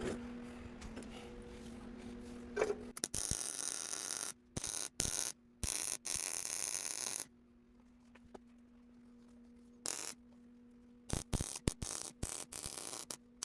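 MIG welder arc crackling in starts and stops: one run of a few seconds with brief breaks beginning about three seconds in, then a string of short tack-like bursts near the end, over a steady electrical hum.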